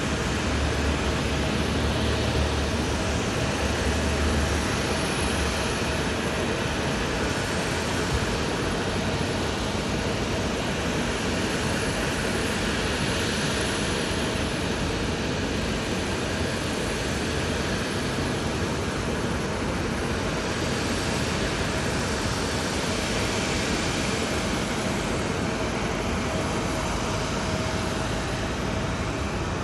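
Jet airliner noise: a steady rush of engine sound with a faint steady hum, swelling gently a couple of times.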